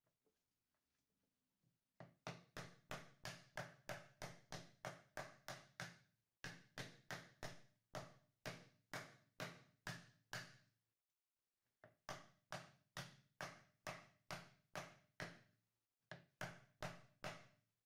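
Rubber mallet tapping an end-grain wooden inlay plug down into its glued pocket in a cutting board. The blows come in quick runs of about four a second, with short pauses between runs.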